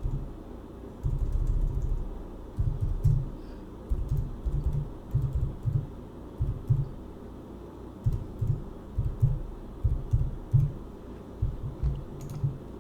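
Typing on a computer keyboard in short irregular bursts, the keystrokes coming through mostly as dull knocks.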